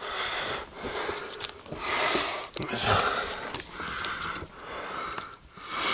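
A person breathing hard in a cramped space, about one loud breath a second, the panting of someone crawling over heaped bricks.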